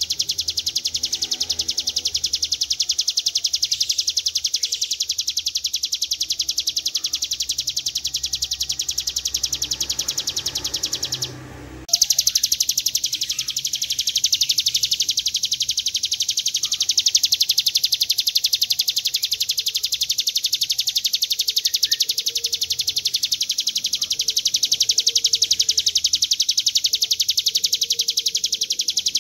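Ciblek gunung, a prinia, singing its long, fast rattling trill (ngebren): an unbroken stream of rapid high notes. It breaks off for about a second around eleven seconds in, then carries on.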